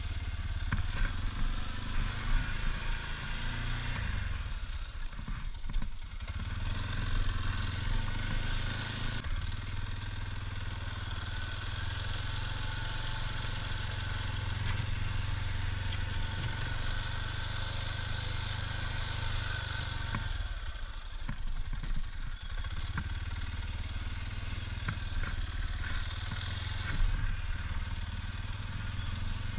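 ATV engine running under load while pushing a front plow blade, easing off twice, about five seconds in and again around twenty seconds in, with occasional clicks and knocks.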